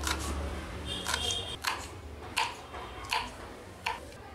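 Kitchen knife chopping green chillies on a wooden cutting board: about six sharp chops, roughly one every two-thirds of a second.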